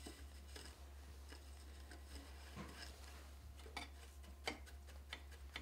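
Faint, scattered clicks and rustles of hands threading a fabric-strip weft through the taut warp threads of a small wooden frame loom, over a steady low hum.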